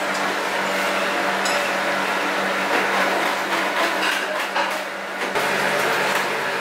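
A steady low electrical hum with general room noise inside a small shop, a little weaker near the end.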